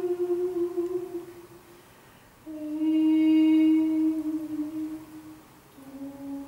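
Soprano and English horn in slow contemporary chamber music, holding long soft notes: a held tone, a short pause about two seconds in, a second long tone, and a slightly lower one starting near the end.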